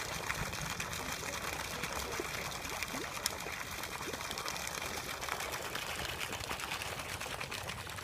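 Water splashing and trickling as a hooked fish thrashes at the pond surface, with small repeated splashes.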